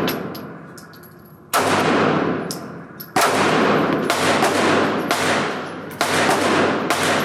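Three slow, aimed shots from a Springfield Hellcat 9mm pistol, a second and a half to three seconds apart, each sharp crack followed by a long echoing decay.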